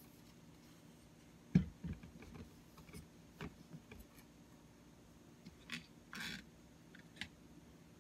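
Scattered clicks and knocks of a Hemmotop 54-inch phone tripod being handled as its legs are spread open and it is stood on a table, the loudest knock about one and a half seconds in. A brief scrape a little after six seconds.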